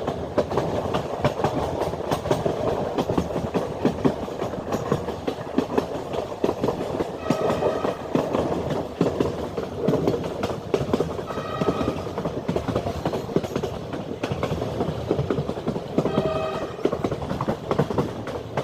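A train running along the track, its wheels clattering steadily over the rails, with three brief high pitched tones about 7, 11 and 16 seconds in.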